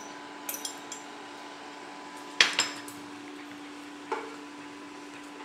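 A metal spoon clinking against a stainless-steel pot, with light taps early and two sharp clinks about two and a half seconds in. A wooden spatula knocks the pot once as the sauce is stirred, over a steady low hum.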